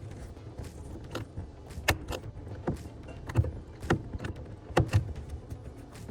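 Hand pop-rivet tool squeezed stroke after stroke on a 1/8 by 5/8 inch blind rivet: a series of sharp metallic clicks, roughly one every half second to a second.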